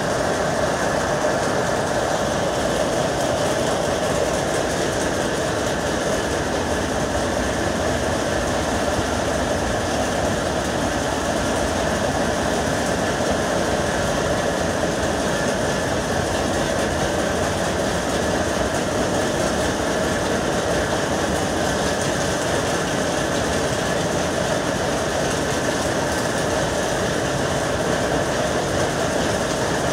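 Power loom weaving a saree, running at full speed: a loud, steady, continuous mechanical clatter with no pauses.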